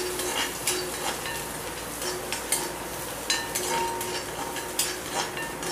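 Chopped onion sizzling in a little oil in a black iron kadai, stirred with a metal spatula that scrapes and clinks against the pan many times.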